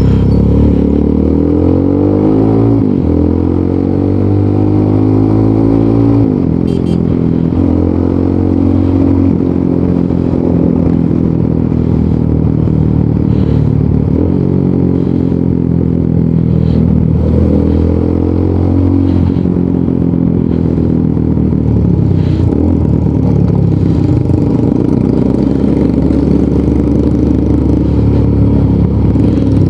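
Rusi Sigma 250 motorcycle with an aftermarket Leovince muffler accelerating on the road. The engine pitch climbs and drops sharply at gear changes about 3 and 6 seconds in, then rises and falls more gently as it rides on.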